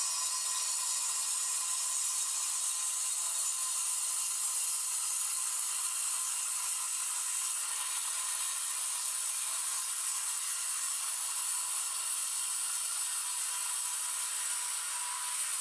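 Angle grinder cutting a fireclay brick with its disc, running a long straight cut along the brick's edge: a steady high whine with gritty grinding hiss.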